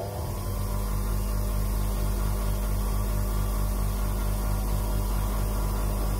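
8-inch bench grinder with a non-woven polishing mop on an extended spindle, its motor finishing its run up to speed about a second in, then running steadily with a low hum, an even pulse and a hiss.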